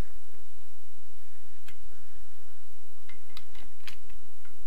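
Half-inch drive socket ratchet clicking as it is worked back and forth on the cylinder head bolts, slackening each bolt about another half turn. A handful of separate clicks, several of them close together in the second half.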